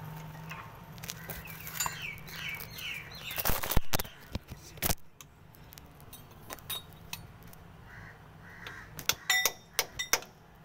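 Metal wrench clinking and knocking against the bolts of a Mahindra Bolero's rear differential cover as they are loosened, in scattered sharp strikes, loudest about four seconds in and in a quick run near the end. Birds call in the background.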